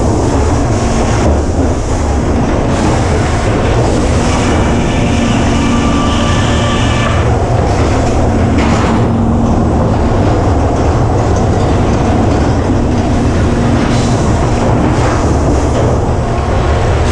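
Sawmill running under load: the log carriage travelling on its rails and the headsaw cutting, a steady heavy machinery noise with a constant hum. A higher whine rises over it for a few seconds about four seconds in.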